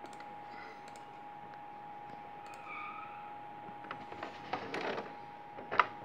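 Computer mouse clicks, a few sharp clicks with the loudest near the end and a brief rustle of handling between them, over a steady high-pitched electrical tone.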